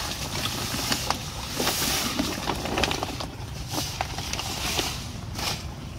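Dry hydroponic fertilizer B poured from a sack into a plastic drum of water: a rushing pour with splashing and a few light clicks for about the first three seconds. After that come shorter rustles and knocks as the sack is shaken out and lifted. A steady low rumble runs underneath.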